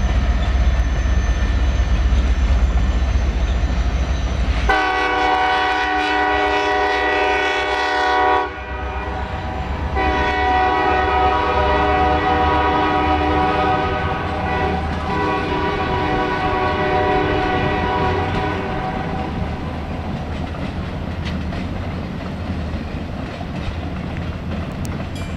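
Alaska Railroad passenger train rolling past with a low rumble. Its locomotive's air horn sounds a chord in two long blasts: the first lasts about four seconds, and after a short gap a longer one follows and fades away.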